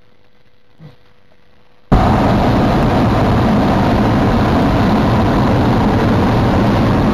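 Hot air balloon's propane burner firing: a loud, steady blast that cuts in suddenly about two seconds in and holds.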